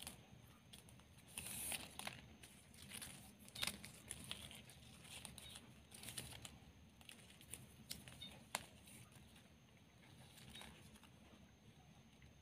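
Faint crinkling and rustling of stiff ribbon strips being woven and folded by hand, with scattered small clicks as the strips rub and snap against each other.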